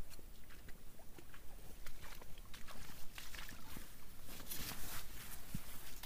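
A person's footsteps crunching and scraping in loose sand, with rustling and scuffing close to the microphone that grows busier in the second half.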